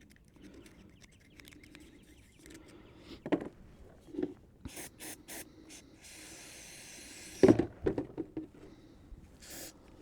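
Clicks, scrapes and knocks of metal tractor parts being handled and worked on, with a steady hiss lasting about a second and a half, cut off by a sharp knock.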